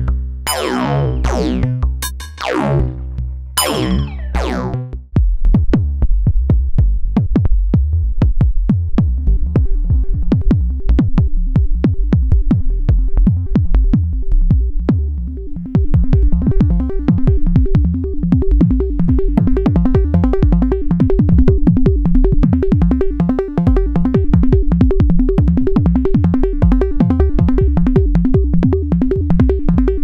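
Make Noise modular synthesizer patch playing. For the first few seconds, resonant pitched sweeps fall in pitch. Then, about five seconds in, a new patch starts: a quick, steady run of tuned electronic kick drums, joined about halfway through by a sustained pitched synth layer.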